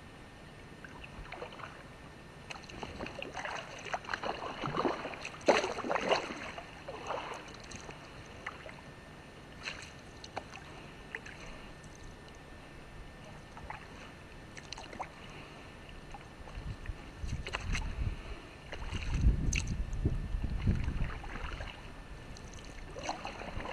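Kayak paddle strokes splashing and dripping water, with a cluster of louder splashes about five to six seconds in. A low rumble follows for a few seconds past the middle.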